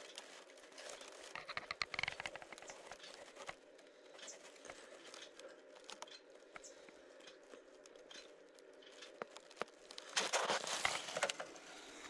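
Faint crackling and rustling of a dry grass nest as a flexible-neck flashlight is pushed in among the eggs. It comes as many small irregular crackles, busiest about a second in and again near the end.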